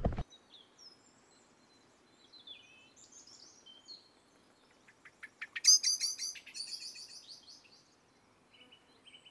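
Small songbirds chirping and calling, with one loud, fast run of repeated notes about five and a half seconds in.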